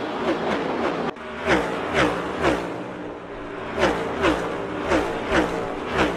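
NASCAR Next Gen stock cars' V8 engines passing one after another at speed. Each pass is a loud burst whose pitch drops as the car goes by, about two a second, over a continuous engine drone. The sound cuts abruptly about a second in.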